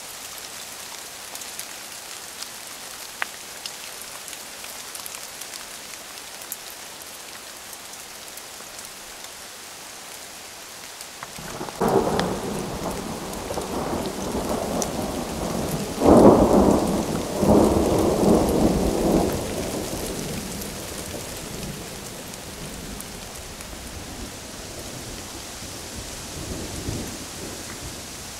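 Steady rain falling, with a long roll of thunder starting a little before halfway through: it swells in several surges over about eight seconds, then fades back to the rain.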